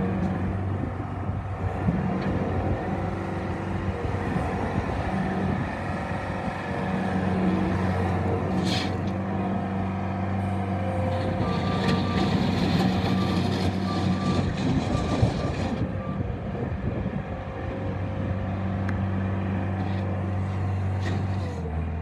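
Bobcat S185 skid steer loader's four-cylinder diesel engine running as the machine drives and turns on gravel, its note shifting with the throttle. A short high beep repeats for a few seconds mid-way, from the loader's backup alarm.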